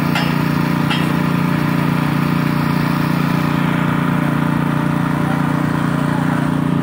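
A small engine running steadily at a constant speed, giving an even, unchanging hum.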